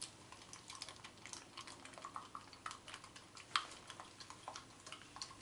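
An egg being beaten for an egg wash in a small cup: light, rapid, irregular clicking of the utensil against the cup, with one sharper click about three and a half seconds in.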